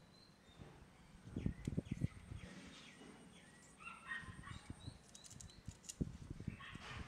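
Plastic pan-tilt bracket and micro servo handled and pressed together by hand: soft knocks and rubs, clustered about a second in and again near six seconds. Birds chirp faintly in the background.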